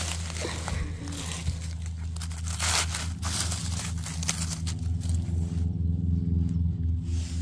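Dry leaf litter rustling and crunching in irregular bursts as someone steps and reaches through it, over a steady low hum.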